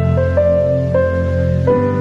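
Background music: a gentle melody of held notes moving over sustained low chords.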